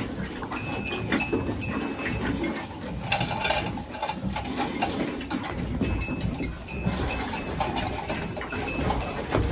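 Cow shifting in a wooden stall: irregular rustling and shuffling in straw, with a few faint short high chirps.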